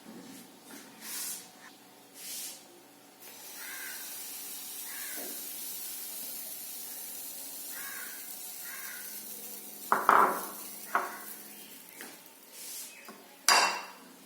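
Sizzling hiss of food cooking on a hot tawa, with sharp clacks of a utensil about ten seconds in, again a second later and near the end.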